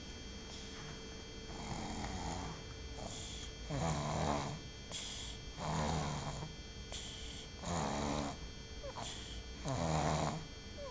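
A sleeping baby snoring, who is a little unwell: one snore roughly every two seconds, the later ones louder.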